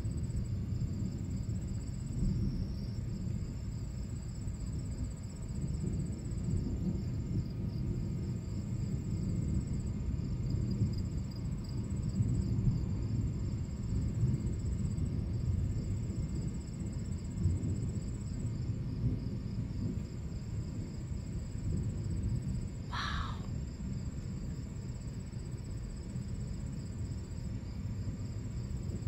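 Continuous low, rolling rumble of distant thunder from a storm with near-constant lightning, swelling and fading without a break. Crickets chirp steadily over it. A single short, higher sound cuts in about three-quarters of the way through.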